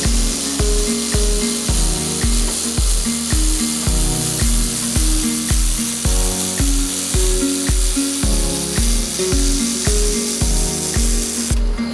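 Background music with a steady kick drum about twice a second and a short-note bass and synth line, over a steady high hiss.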